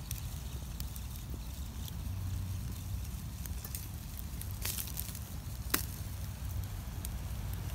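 Wood fire burning in a small firebox stove, with a few sharp crackles and pops, the loudest a little past halfway, over a steady low rumble.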